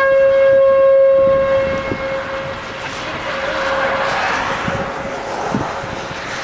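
Outdoor tornado warning siren sounding a steady single-pitched wail that fades away about three seconds in, as a rushing noise swells up behind it.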